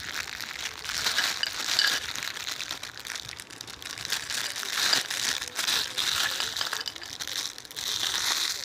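Plastic wrapper of a packet of chocolate biscuits crinkling continuously as the packet is handled and the biscuits are tipped out onto a clear plate.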